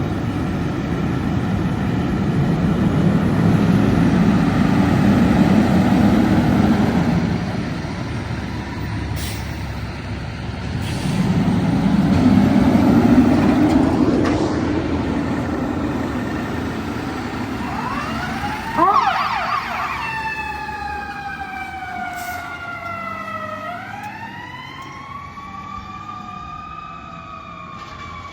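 Fire trucks' diesel engines rumbling and swelling loudly twice as the apparatus pulls out of the station. About nineteen seconds in there is a short sharp blast, then a fire truck siren wails, its pitch sliding slowly down, jumping back up and sliding down again as it fades.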